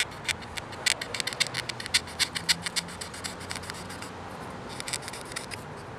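A titanium dive knife blade rasping through a small strip of leather in quick, short scratchy strokes, several a second. The strokes thin out after about three seconds and pick up again in a brief burst near the end. The blade, having lost some of its edge, only gets through the leather with effort.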